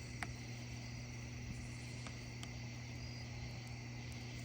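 Faint, steady insect chirring with a low steady hum underneath; a short falling squeak about a quarter second in.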